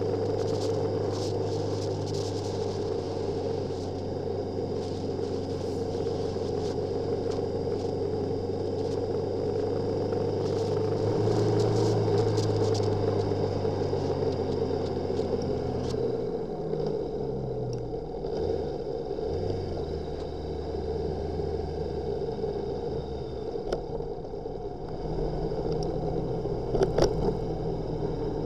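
Motorcycle engine running while riding, a steady drone. About two-thirds of the way through its pitch drops and wavers for a few seconds, and a few sharp clicks come near the end.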